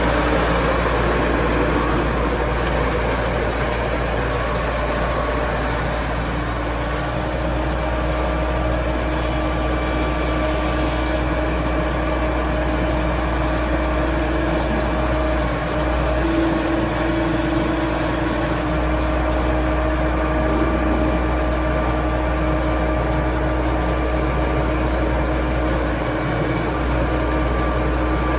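John Deere 555 crawler loader's diesel engine running steadily with a constant low rumble.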